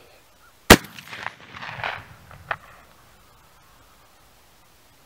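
A single shot from a Remington Versa Max semi-automatic 12-gauge shotgun firing a 3-inch slug, sharp and loud, about a second in, followed by faint rustling and two light clicks.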